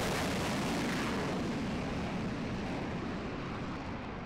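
Twin jet engines of an F/A-18 Super Hornet at full power just after a carrier catapult launch: a loud roar that fades steadily as the jet climbs away, its high hiss dying off first.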